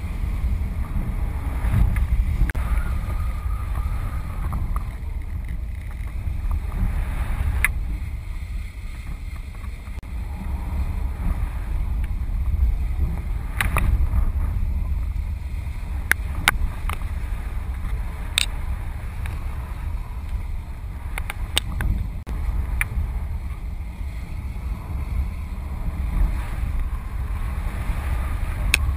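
Wind buffeting the microphone of a camera carried aloft, a steady low rumble with a few sharp clicks scattered through it.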